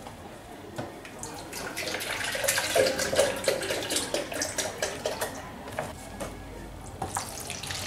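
Milk poured from a carton into a plastic measuring jug, splashing and glugging for a few seconds, with small knocks and clicks of the carton and jug.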